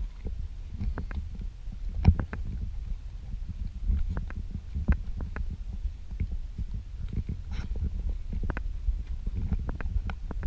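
Horse walking on sand, with irregular knocks of hooves and tack over a steady low rumble of movement on the microphone.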